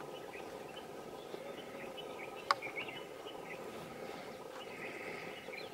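Quiet wild outdoor ambience: scattered short bird chirps over a faint steady insect drone, with a single sharp click about two and a half seconds in.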